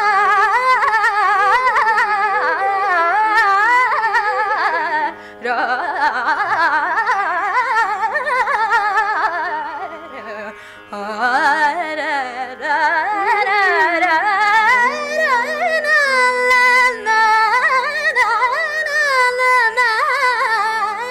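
Carnatic female voice singing an improvised passage in raga Shubhapantuvarali, with heavily ornamented, gliding notes over a steady drone and a violin shadowing the melody. No percussion plays.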